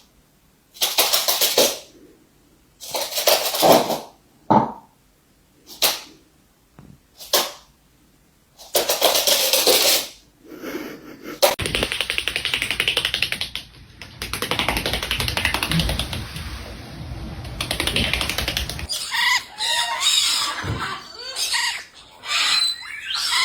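Parrots squawking and screeching in a series of loud short outbursts, then a stretch of steady noise, then quicker chirping, whistle-like calls.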